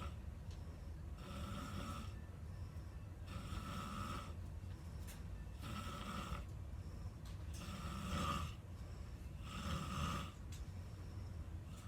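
A person snoring in sleep: five rasping snores about two seconds apart, over a steady low hum.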